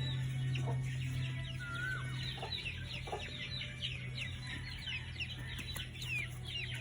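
Chickens clucking and peeping: a constant chorus of short, high, falling peeps with a few lower clucks, over a steady low hum.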